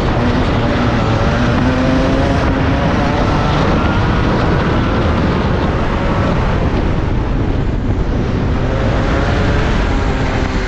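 Rotax 125 single-cylinder two-stroke kart engine at racing throttle, its note rising as the kart accelerates out of a corner and down the straight, then dropping as the driver lifts and brakes for the next corner.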